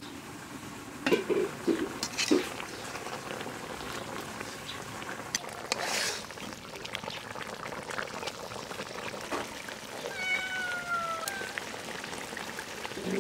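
Fish-head curry simmering in a karahi, with a few sharp metal knocks early on from the pan lid and utensil and stirring noise about halfway. Late on, a single drawn-out, slightly falling meow.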